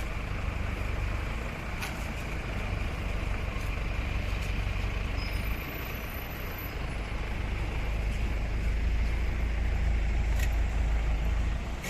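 Safari vehicle driving, a steady engine and road rumble that grows a little louder in the second half.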